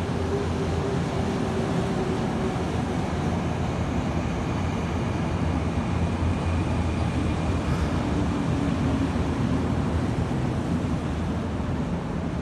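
Kyoto Municipal Subway 10 series train running into an underground station, a steady rumble of wheels on rails with a faint motor tone sliding lower as it slows to stop.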